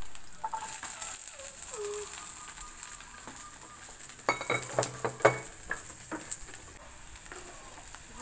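Diced carrots and onions sizzling in hot oil in a frying pan, with a few knocks near the middle.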